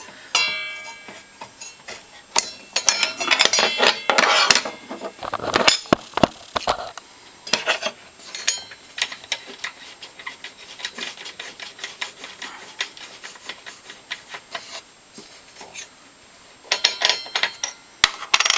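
Metal parts and hand tools clinking, tapping and clattering against a table saw, in scattered irregular knocks with brief metallic ringing, busiest in the first five seconds and again near the end.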